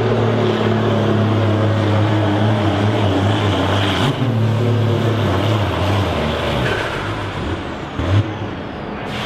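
Ford TW-25 tractor's six-cylinder diesel engine running hard under full load as it drags a pulling sled, a steady low drone. About two-thirds of the way through, the engine note drops lower and the sound eases slightly.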